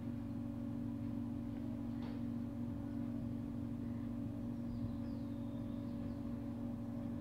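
Steady low electrical hum, with a few faint squeaks of a marker writing on a whiteboard.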